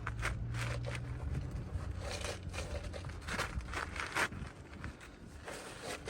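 Irregular scraping, crinkling and crackling from hands and tools working asphalt roof shingles while a damaged shingle is removed and a new one fitted.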